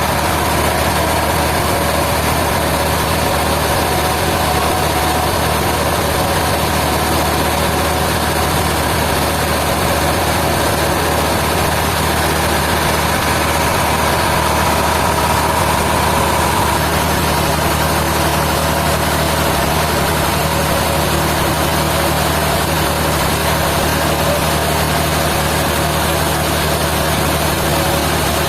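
Sawmill machinery running steadily with a continuous mechanical hum and a faint whine that fades about halfway through.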